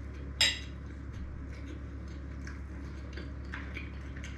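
Cutlery clinks once against a plate about half a second in. Faint small clicks follow over a steady low hum.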